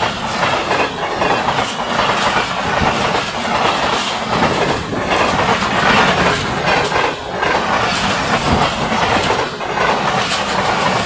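A Pakistan Railways passenger train's coaches rushing past close by at about 108 km/h. The wheels clatter over the rails again and again above a steady loud rush of noise.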